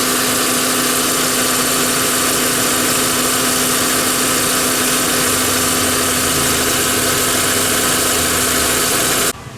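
VW Beetle engine idling steadily, running smoothly on a freshly refitted engine mount with new bolts and brackets. The sound cuts off abruptly near the end.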